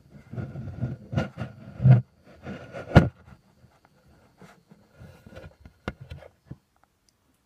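Handling noise from a handheld phone: irregular rubbing, rustling and knocks on the microphone. The loudest is a sharp knock about three seconds in, and the noise thins to a few scattered clicks and stops about a second before the end.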